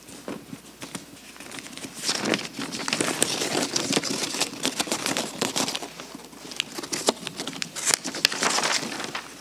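Sheets of paper being handled and leafed through, a dense irregular rustling and crinkling that grows busier about two seconds in.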